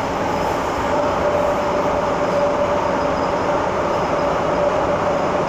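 Interior running noise of an MTR M-Train electric multiple unit on the move: a steady rumble of wheels on rails with a steady whine through it.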